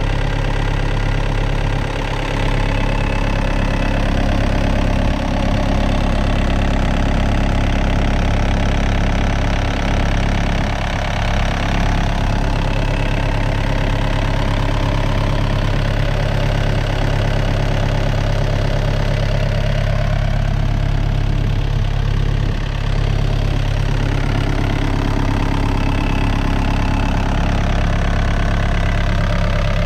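Diesel engine of a 2013 Volvo ECR50 mini-excavator idling steadily, heard close up with the engine cover open.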